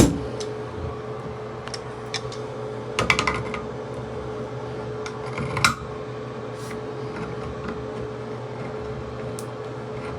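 Small clicks and light knocks of a shower head being tightened onto the shower arm, with a quick cluster of clicks about three seconds in and a sharper one near six seconds, over a steady hum.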